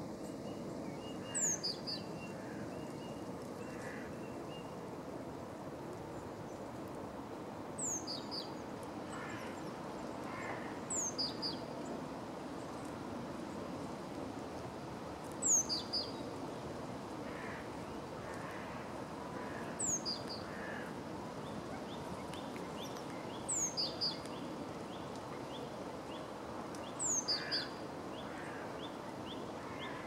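Male great tit singing: short phrases of a high note sliding down followed by one or two shorter, lower notes, repeated about every three to four seconds over a steady low background rumble.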